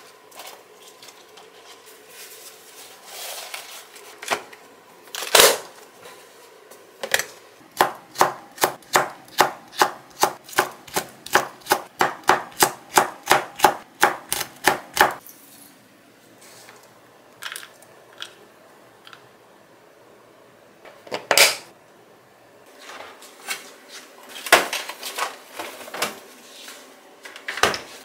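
Chef's knife slicing red chillies on a cutting board: a quick, even run of about four knife strokes a second lasting about seven seconds in the middle. Scattered single knocks and clatters of kitchen handling come before and after it.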